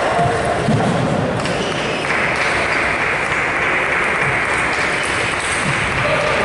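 Applause in a large sports hall just after a table tennis rally, an even clapping hiss that swells about two seconds in.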